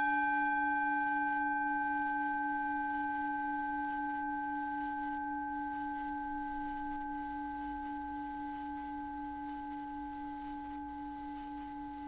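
Two pure planetary-frequency tones, for Mars and the synodic Moon. A steady low tone with a slow waver is joined right at the start by a higher tone that begins sharply and rings with several overtones, slowly fading.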